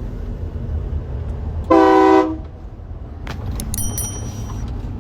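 Aftermarket train horn on a truck sounding one short blast of about half a second, about two seconds in, over the truck's steady low rumble.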